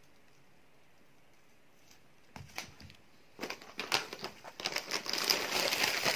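Plastic food packaging being handled: a couple of light taps about two and a half seconds in, as a plastic tray is set down on a table, then crinkling and rustling of plastic packaging from about three and a half seconds in, growing louder toward the end.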